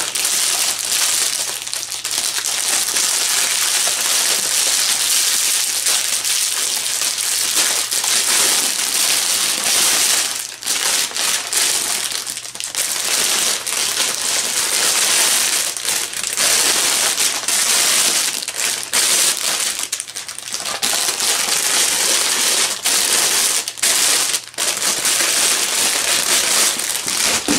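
Clear cellophane gift-basket wrap crinkling and rustling loudly as it is handled and pulled off by hand, almost without a break except for a few brief pauses.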